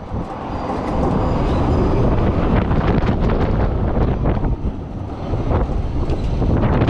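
Wind buffeting the microphone of a KMG XXL pendulum ride in motion, over the ride's low mechanical rumble. The loudness dips briefly near the start and again about two-thirds of the way through.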